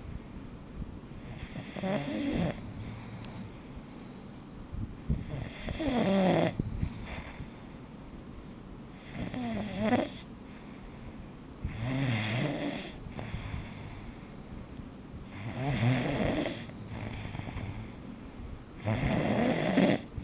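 A person snoring, six long snores coming about every three and a half to four seconds.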